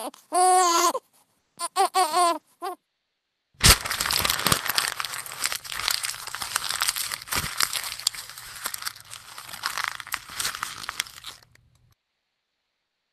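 A cry like a baby's ends about a second in, followed by a few short whimpers. After a pause, a crinkling, crackling noise made of many small clicks runs for about eight seconds and stops abruptly.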